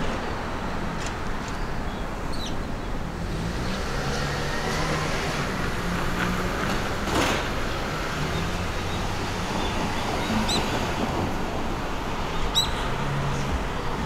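Outdoor street ambience: a steady rumble of road traffic, with a vehicle's engine swelling as it passes in the middle, and a few short bird chirps.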